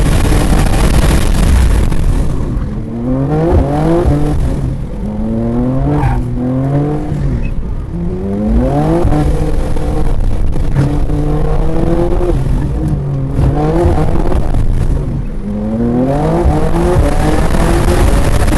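BMW M2 (G87)'s twin-turbo inline-six engine under hard acceleration on a race track, its pitch rising through the gears with a brief break at each upshift, then falling off between pulls. A steady rushing noise runs underneath.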